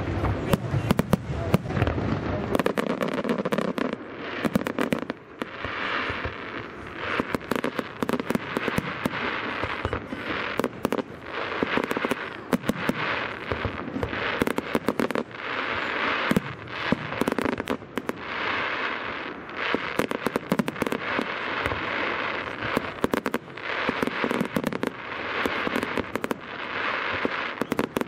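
Aerial fireworks display going off continuously: a dense run of sharp pops and bangs, with low booms in the first few seconds and repeated swells of crackling after that.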